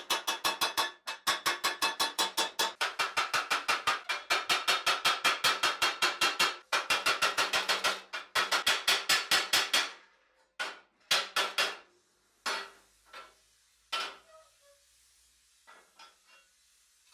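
Hand hammer striking hot sheet steel on a steel stake anvil in rapid, ringing blows, about six a second, with brief pauses. The hammering stops about ten seconds in, followed by a few separate metal knocks and faint clanks.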